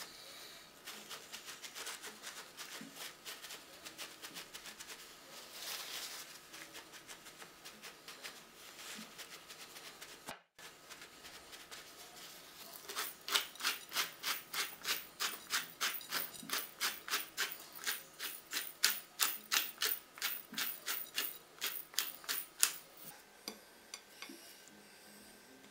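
A hand-turned spice mill grinding salt and pepper: rapid, evenly spaced clicking at about four clicks a second, strongest in the second half and stopping near the end, with fainter ticking earlier.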